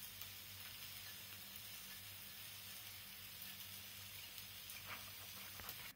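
Chicken stock simmering in a stainless-steel pot on a gas stove: a faint, steady hiss with a few light ticks near the end.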